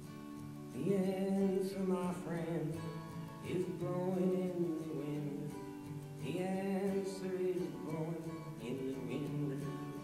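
Recorded folk song: a voice singing over strummed acoustic guitar. The sung line comes in about a second in and runs in two long phrases.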